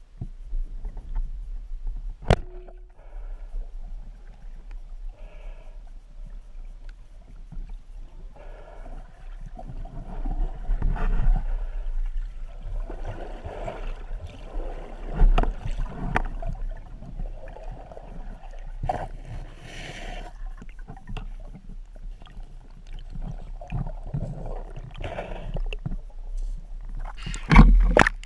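Muffled underwater noise picked up by a diver's camera while swimming: water rushing and gurgling past the housing, with scattered knocks and a sharp click about two seconds in.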